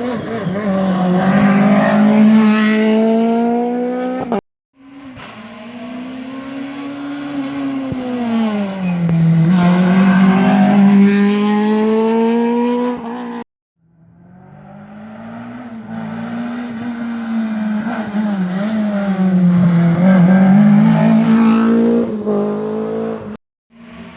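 Rally cars at full throttle on a special stage, in three short clips joined by abrupt cuts. In each, an engine climbs in pitch and loudness, dips briefly as the driver lifts or changes gear, then climbs again.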